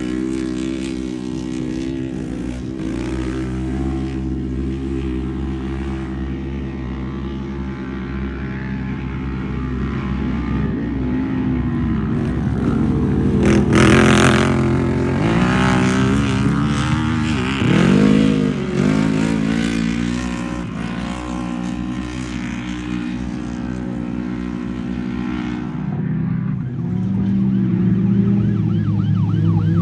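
Off-road race vehicle engines running and revving, several at once. A loud rush goes past about 14 seconds in, and the engine pitch swings up and down a few seconds later.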